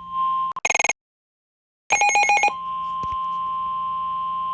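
Emergency Alert System signal on FM radio. Rapid, screechy digital header bursts cut out completely for about a second near the start, then a last burst comes around two seconds in. The steady two-tone EAS attention signal follows and holds.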